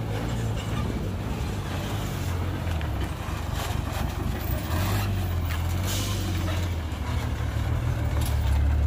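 Dump truck's diesel engine running with a low, steady drone that shifts slightly in pitch, with a few faint clicks and knocks over it.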